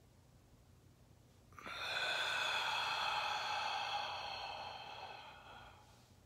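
A man's long, forceful exhale through the open mouth, releasing a breath held at the top of the inhale. It starts suddenly about a second and a half in, is loudest at first, and fades out over about four seconds.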